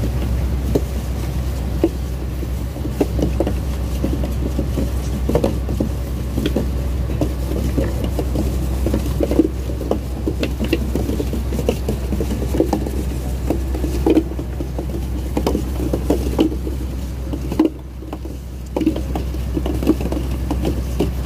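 A purse seine being paid out over the side of a wooden fishing boat: the net's plastic floats knock and clatter irregularly against the gunwale over the steady low hum of the boat's engine.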